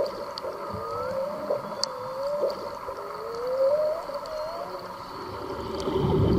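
Whale song: a run of low moaning calls, each rising in pitch over about a second, with a few faint high clicks. A louder low rushing sound swells near the end.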